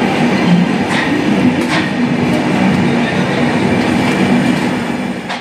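Red Indian Railways express coaches rolling past on departure: a steady rumble of wheels on rail with a low hum, and two brief sharp clicks about one second and just under two seconds in.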